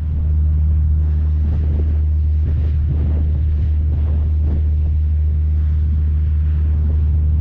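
Cruise boat's engine running with a steady low drone, with wind on the microphone.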